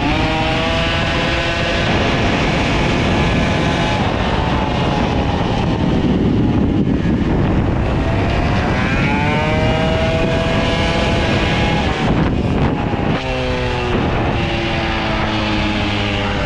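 Two-stroke moped engine being ridden hard on a track, revving up and down. The pitch climbs early on, drops about two seconds in, climbs again from about eight seconds, falls sharply around thirteen seconds and rises again, all under a dense rush of exhaust and wind noise.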